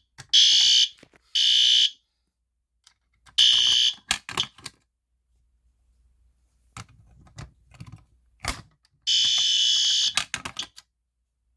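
Fire alarm horn strobe sounding loud short blasts set to code 3, the temporal-three pattern: three blasts in the first four seconds, then one longer blast about nine seconds in. Clicks and knocks come in between.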